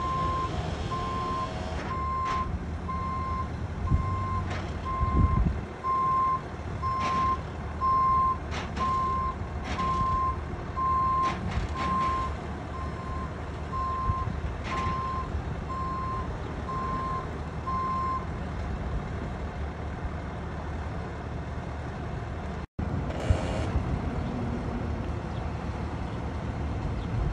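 Tow truck's reversing alarm beeping about once a second over its running engine, stopping about two-thirds of the way through. A few knocks are heard alongside the beeps.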